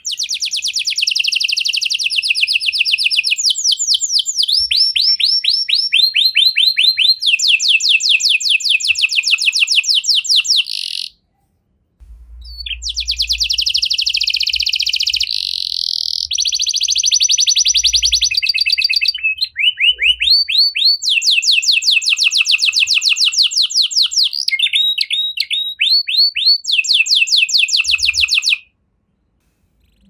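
Red canary singing long songs built of fast trills: each run of rapidly repeated high notes switches to a new pattern every second or two. The song breaks off for about a second about eleven seconds in, then runs on until it stops near the end.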